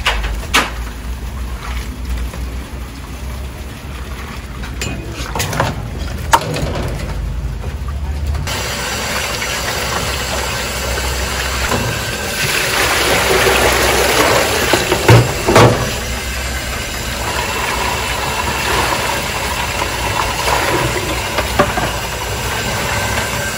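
Cooked noodles being rinsed in a plastic colander under a running tap: water pouring and splashing into a basin, with scattered clicks and knocks from the wire strainer and colander. A low hum runs under the first several seconds. The water noise swells and peaks with a couple of sharp knocks about fifteen seconds in.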